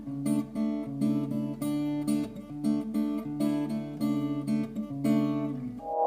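Background music: an acoustic guitar playing a repeating chord pattern, which stops just before the end.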